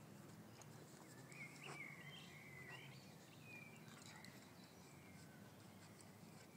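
Faint high-pitched whining from a Leonberger puppy play-wrestling with a bigger dog: one long wavering whine about a second in and a shorter one a little later, over a low steady hum.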